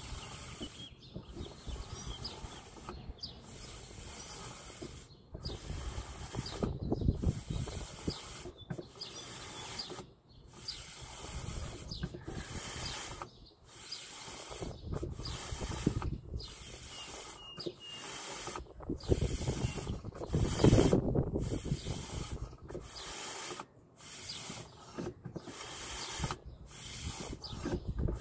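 A new brake master cylinder being bled by repeated pumping: a hissing, rubbing stroke about once a second with short breaks between, as fluid and air bubbles are pushed through the bleed lines.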